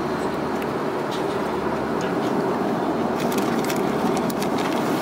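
Steady cabin noise inside an Airbus A340-600 in flight: the drone of its four engines and of the air rushing past the fuselage. In the second half there is a burst of crackling as plastic-wrapped packets in the seat pocket are handled.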